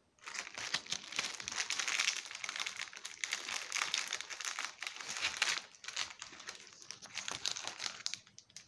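Clear plastic bag crinkling as hands handle and open it, a dense crackle that starts abruptly, is loudest in the first few seconds and thins out near the end.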